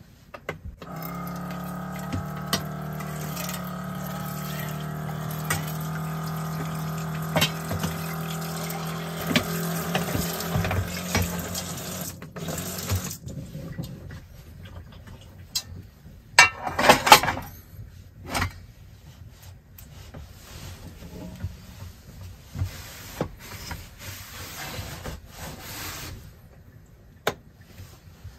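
Water running from the tap into a small stainless-steel sink with a steady hum under it for about twelve seconds while dishes are rinsed, then cutting off. After that come light clinks and knocks of dishware being handled, a short loud clatter about seventeen seconds in, and soft rubbing near the end.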